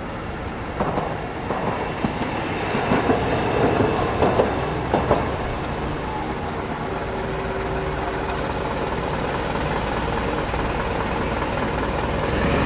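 Tokyo Toei Arakawa Line tram passing at close range over a level crossing: a clatter of wheel clicks and knocks in the first few seconds, then a steady rolling rumble.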